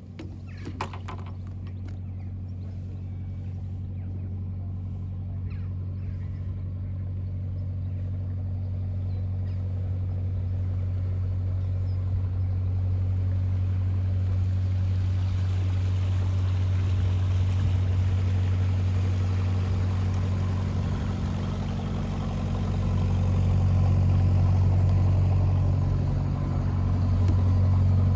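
A motor boat's engine running with a steady low hum, growing gradually louder as the boat comes closer.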